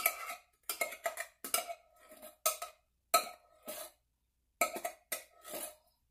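A metal spoon knocking and scraping inside an opened tin can, getting the last of the tomatoes out. About a dozen irregular knocks, each with a short metallic ring.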